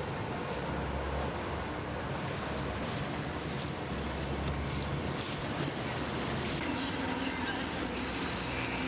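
Steady low rumble of boat engines on the water, with wind on the microphone.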